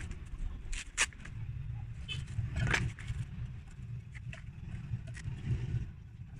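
Handling noises as fabric straps and a small steel plate are moved about on a galvanized steel plate on a wooden bench: a few light clicks and scrapes, the sharpest about a second in and a longer scrape near the middle, over a steady low background rumble.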